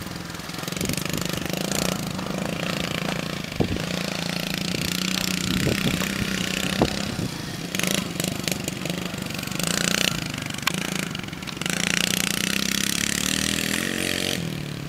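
Small dirt bike engine running as the bike rides laps of a dirt track, with a steady engine tone and a rising pitch near the end as it revs up.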